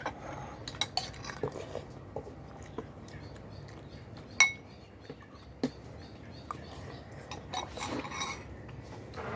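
Eating utensils clinking and tapping against bowls and dishes at irregular moments during a meal, with one sharp clink that rings briefly about four and a half seconds in.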